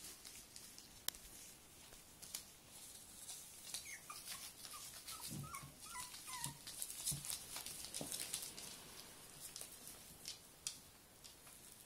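Miniature schnauzer puppies whimpering, a run of short high squeaks in the middle, over scattered clicks and crackling from the plastic sheeting under them.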